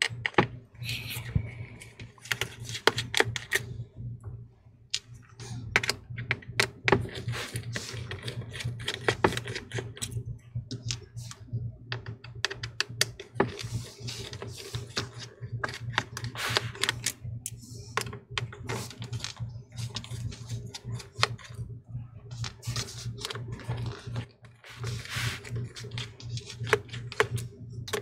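Irregular small clicks and taps of a precision Torx T5 screwdriver and fingers working on small screws and the thin metal parts inside a MacBook Air laptop, over a steady low hum.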